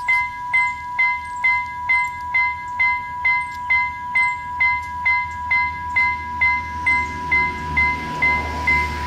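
Trackside railway warning bell, as at a level crossing, ringing about twice a second over a steady electronic tone, signalling that a train is coming. A low rumble from the approaching train grows from about seven seconds in.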